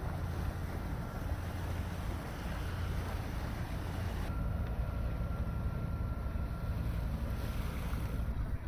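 Steady low hum of a sailing yacht's inboard engine while motoring, with wind noise on the microphone.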